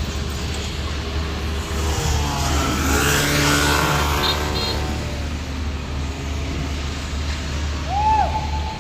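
Steady low rumble of vehicle traffic. About two to five seconds in, a passing vehicle's engine rises and falls in pitch. Near the end comes a short tone that rises and falls.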